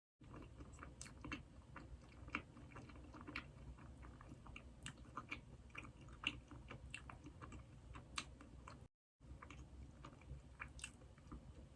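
Close-miked chewing of Krispy Kreme doughnuts: faint, irregular wet mouth clicks and smacks over a low steady hum, broken twice by a moment of dead silence.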